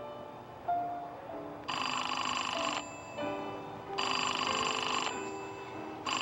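Payphone ringing twice, each ring about a second long, with a third ring starting near the end, over soft background music.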